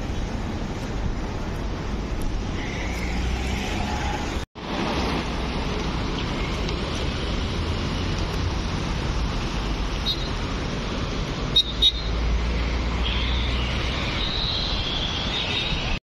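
Steady rushing outdoor noise of a fast mountain river and road traffic. The sound cuts out for an instant about a third of the way in, and two sharp knocks come close together about three-quarters through.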